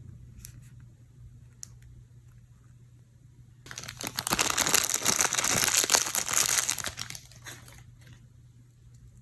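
Toy packaging being crinkled and rustled by hand: a couple of faint ticks, then about four seconds of loud, dense crinkling starting nearly four seconds in.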